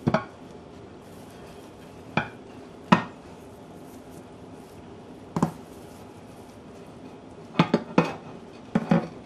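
Glass loaf pan knocking and clinking against a ceramic plate as it is turned upside down to tip out a meatloaf: a few separate sharp knocks, then quick clusters of knocks near the end.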